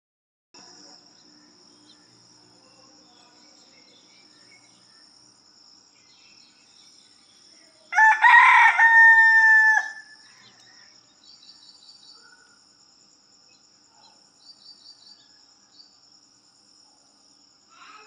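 A rooster crows once, a single cock-a-doodle-doo about two seconds long starting about eight seconds in, ending on a held note that drops away. A faint steady high-pitched tone runs underneath, with a few small bird chirps.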